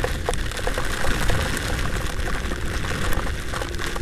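A Honda Vario 125 scooter ridden through heavy rain: a steady rush of wind and rain over the scooter's running engine, with scattered sharp taps of raindrops striking the camera.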